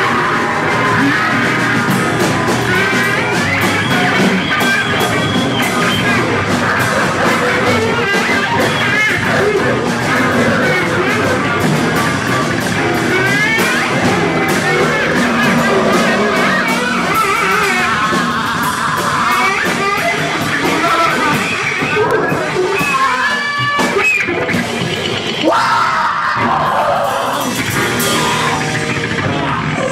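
Loud live noise-rock performance: a dense wall of distorted sound with squealing sweeps that rise and fall in pitch, thinning briefly about 23 seconds in before building again.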